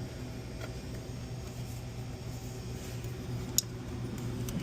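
Steady low hum of a commercial freezer running, with faint handling clicks and one sharp click about three and a half seconds in as the rocker switch is worked out of its panel.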